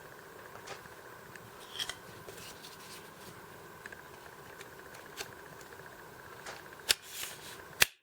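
Faint handling noise from a cordless jigsaw being turned over in the hands: scattered light clicks and taps over a steady background hiss, with two sharper clicks near the end.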